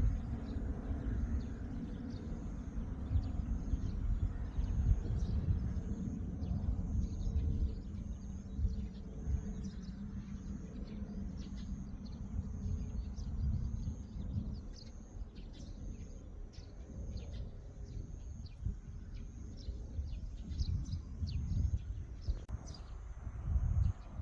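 Outdoor ambience: a steady low rumble, strongest in the first half, under a long run of short, high chirps repeating about twice a second.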